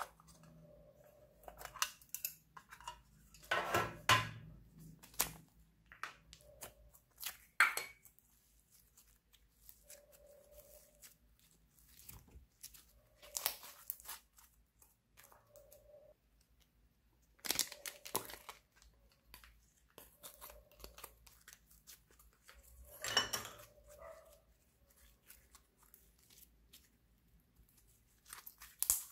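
Hands squishing and stretching soft slime: sticky crackling and tearing sounds in short, irregular bursts.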